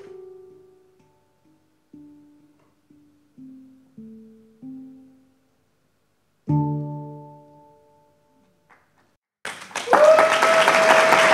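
A Hang, a steel handpan, struck with the fingers: single ringing notes that fade, then a louder, deeper stroke about six and a half seconds in that rings out. Loud audience applause breaks out near the end, with a long steady held tone over it.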